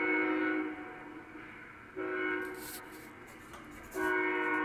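Union Pacific locomotive's five-chime Nathan K5HL air horn sounding a grade-crossing pattern. A blast ends under a second in, a short blast comes about two seconds in, and a long blast begins about four seconds in, heard through a computer's speakers from a live webcam feed.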